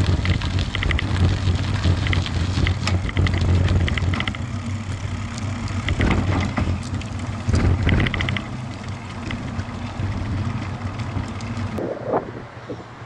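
Wind noise and a low road rumble picked up by an action camera riding on a bicycle, with bursts of quick rattling as the bike rolls over paving stones. It gets quieter about twelve seconds in as the bike comes to a stop at the crossing.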